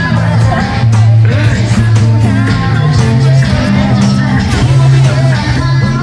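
Loud music with a deep bass line holding long notes, and a singing voice over it.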